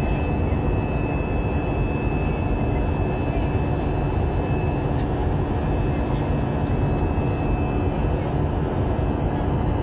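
Steady cabin noise of an airliner in flight: the even rush of jet engines and airflow heard through the fuselage, with a faint steady hum and a thin high whine over it.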